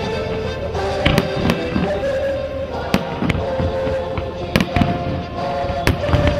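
Aerial fireworks shells bursting: about ten sharp bangs at irregular intervals, some in quick pairs, over music with held notes.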